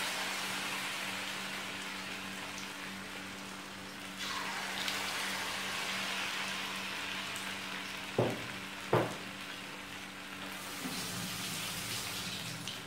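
Mysore bonda batter sizzling as it deep-fries in hot oil in a small wok, with a steady frying hiss that grows louder about four seconds in. Two short knocks come about eight and nine seconds in.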